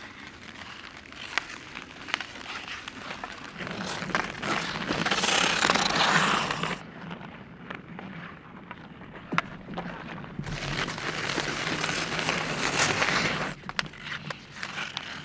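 Ice skate blades scraping and carving across outdoor rink ice, with scattered sharp clacks of hockey sticks and puck. The scraping swells loudest in two long stretches, a few seconds in and again after the middle.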